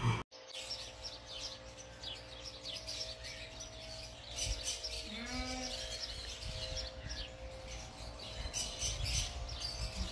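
Faint outdoor background with scattered small bird chirps, and one short whine-like call about five seconds in.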